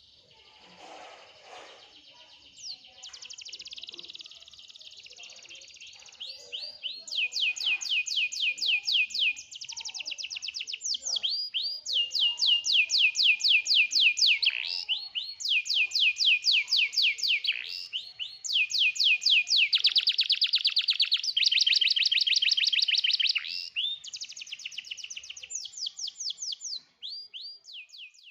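Domestic canary singing a long, varied song of rapid trills: quick runs of repeated falling notes, the phrase changing every second or two. It starts faint and grows louder about seven seconds in.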